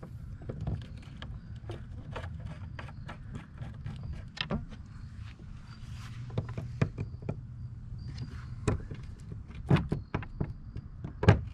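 Hand screwdriver turning 10-32 screws through a stern motor-mount plate into a kayak's factory holes: an irregular run of small clicks and scrapes, with a few louder knocks near the end.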